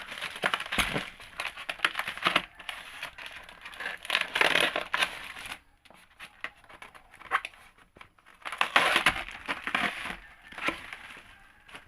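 Packaging crinkling and rustling as a car horn is unwrapped by hand, in irregular bursts with sharp crackles, busiest about four seconds in and again near the end, with a quieter pause in between.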